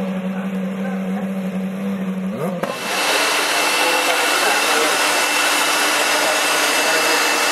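A steady hum stops about two and a half seconds in, and a steady rushing of air with a thin high whine takes over: an electric air blower running at the racing car on the grid.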